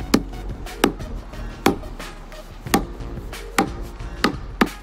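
Hand tamper's steel plate striking a freshly watered, water-activated cold asphalt patch over and over, a little more than once a second. Each blow packs the loose patch material down toward the level of the surrounding asphalt.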